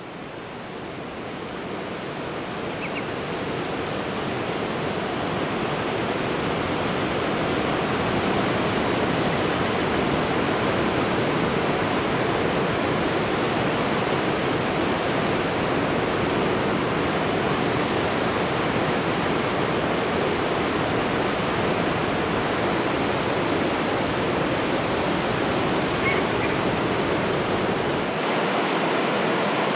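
Ocean surf breaking on a beach, a continuous steady wash that fades up over the first several seconds.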